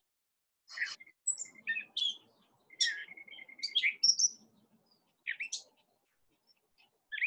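Songbirds chirping and whistling in short, high phrases with gaps between them, one whistled note held steady for about a second near the middle.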